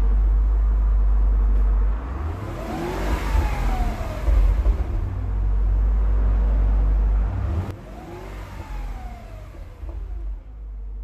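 Car engine sound: a steady low rumble, twice swelling into a rev that climbs and falls back in pitch, dropping away near the end.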